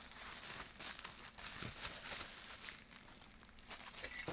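Plastic packaging crinkling and rustling as it is handled, with small irregular crackles throughout.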